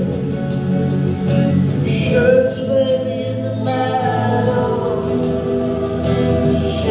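Live band playing a song: a man singing over acoustic guitar, keyboard and drums.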